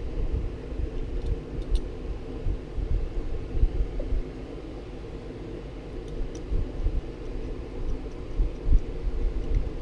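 A steady background hum, like a fan or air conditioner, with uneven low bumps and a few faint clicks of small axle parts being handled on the bench.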